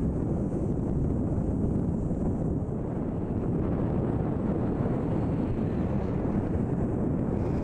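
Wind buffeting the microphone in a steady low rumble, over the wash of a choppy sea.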